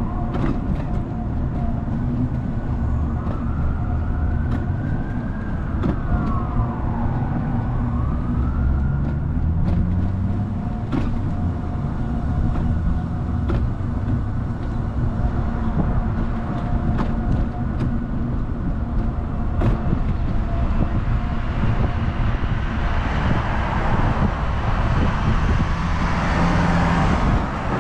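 Car driving on a road: steady low engine and tyre rumble. A siren wails up and down a few seconds in, and a hiss of passing traffic swells near the end.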